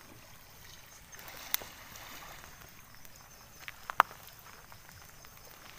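Faint steady outdoor background with a few sharp clicks, the loudest about four seconds in.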